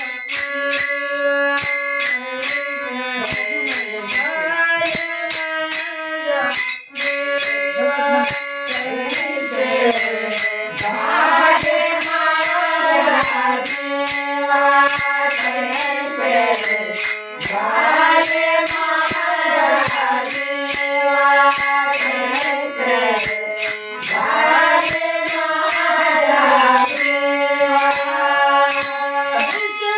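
Marathi devotional abhang music: a sliding melodic line in repeated phrases over a steady beat of small jingling cymbal strikes.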